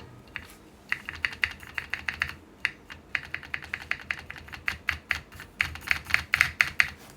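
Typing on a Neson Design 700E custom mechanical keyboard with KFA Pink Robin linear switches, an aluminium plate and PBT keycaps: a quick, uneven run of sharp keystrokes that starts about a second in and gets busier toward the end.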